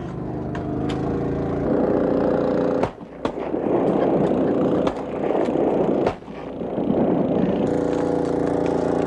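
A motor running steadily at one pitch, broken off sharply two or three times.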